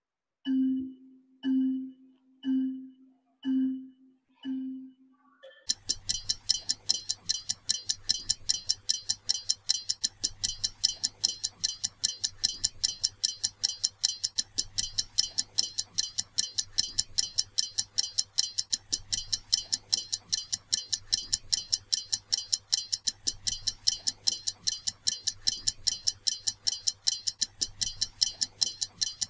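Quiz game sound through the computer audio: a series of short, low beeps under a second apart counting the game in, then about six seconds in a fast, steady ticking like a clock that runs on as the countdown music.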